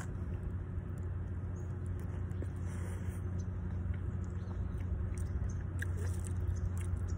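A person chewing chili cheese fries close to the microphone, with scattered small clicks, over a steady low hum.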